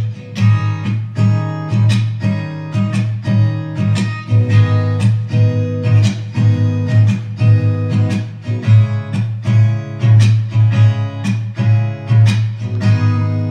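Acoustic guitar being strummed or plucked in a steady rhythm of about two strokes a second, with no singing.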